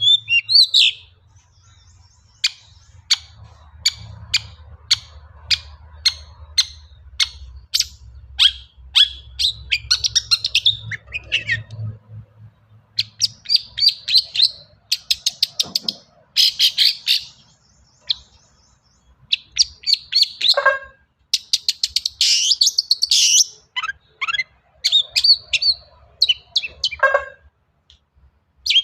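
Long-tailed shrike (cendet) singing: a run of sharp, clipped high notes at about two a second, then fast, varied chattering phrases that weave in mimicked calls of other birds.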